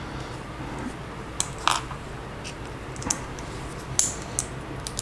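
Small plastic Lego pieces being handled and clicked together: a scattering of light, irregular clicks.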